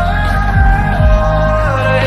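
Hindi film pop song with the panning 8D audio effect: a long held sung melody that steps between notes, over bass and kick drum beats.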